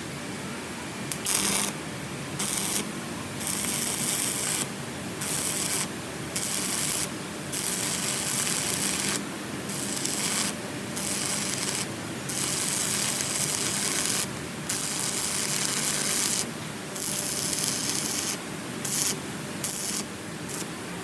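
Electric arc welding crackling and hissing in repeated bursts of half a second to two seconds, the arc struck and broken again and again.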